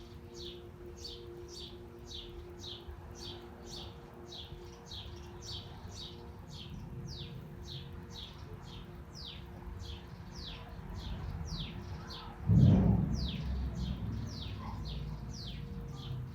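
A bird repeats a short, falling chirp about twice a second, over a faint steady hum and low rumble of city background. Near the end a sudden loud low thump breaks in and fades over a second or two.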